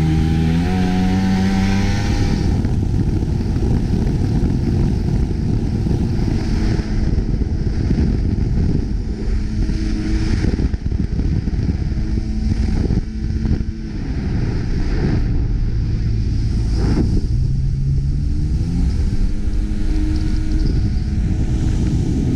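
Jet ski engine running under way on the water, a dense steady motor noise. Background music fades out at the start and comes back in near the end.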